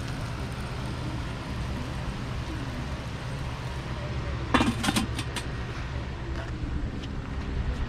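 A few sharp metallic clanks in quick succession about halfway through, as the enamelled steel lid of a Weber Little Smokey kettle grill is lifted off. A steady low rumble sits in the background.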